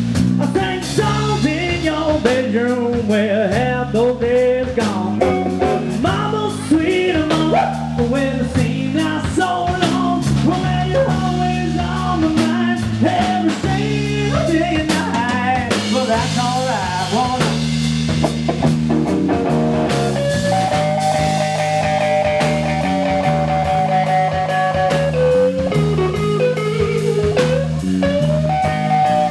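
Live blues band playing an instrumental break: lead electric guitar with string bends, over electric bass and drum kit. About two-thirds of the way through the guitar holds one long note for several seconds.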